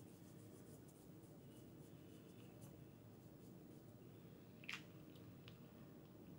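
Near silence: room tone with faint light ticks and one brief click about four and a half seconds in.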